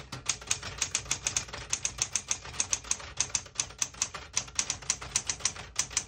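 Smith-Corona Galaxie Twelve manual portable typewriter being typed on: a quick, even run of typebar strikes, several a second, with no pauses.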